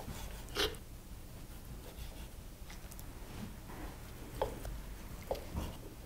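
Knife slicing through a roasted chicken breast on a wooden chopping board: faint cutting and scraping, with a sharp knock of the blade on the board about half a second in and a few lighter taps near the end.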